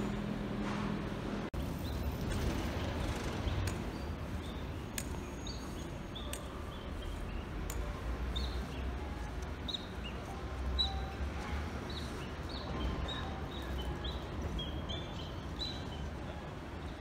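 A train's steady hum at the platform, cut off suddenly about a second and a half in; then small birds chirping over and over above a low steady outdoor rumble.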